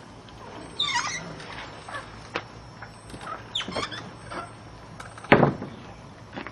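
Birds calling with short chirps and squawks, a couple of times, with scattered small scuffling ticks and one sharp thump a little over five seconds in.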